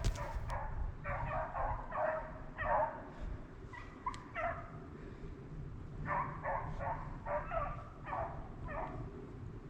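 Rabbit dogs giving voice as they run a rabbit's track: a string of barking calls a few a second, with a lull of a few seconds near the middle.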